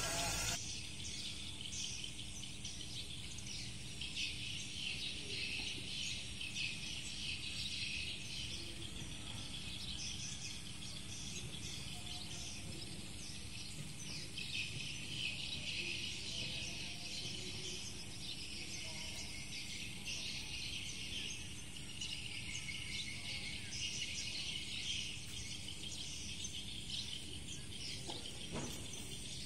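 Outdoor chorus of insects and birds chirping, a dense high-pitched chirring that swells and fades.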